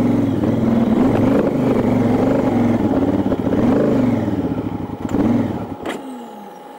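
Motorcycle engine running under way, its revs rising and falling, then dropping away about six seconds in.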